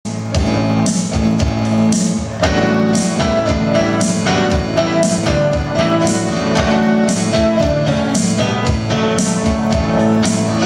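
Live band playing a song on electric guitar, bass guitar and keyboards, with a steady beat.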